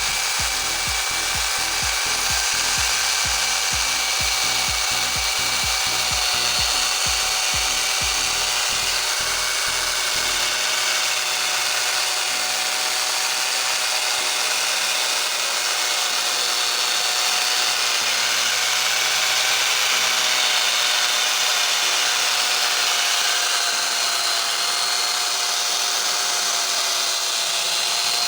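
Angle grinder converted into a chainsaw, running at speed and cutting wood: a steady high motor whine over the rasp of the chain. Underneath, a low, fast, even pulsing stops about ten seconds in.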